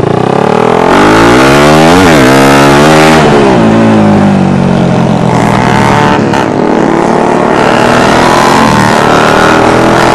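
Suzuki Raider 150 single-cylinder four-stroke engine at full throttle, its pitch climbing fast and dropping at two quick gear changes in the first three seconds, then holding a high, steady pitch.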